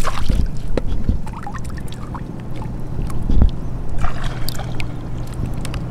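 Water trickling and splashing, with scattered small clicks and knocks, as shrimp are scooped and sorted with a hand sieve in shallow water.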